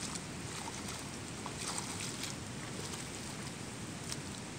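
Floodwater rushing steadily, with a few faint brief ticks.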